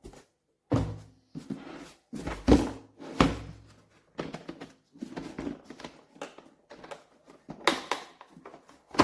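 A plastic carrying case for a cordless drill being handled and opened: several knocks and clunks, with handling rustle between them.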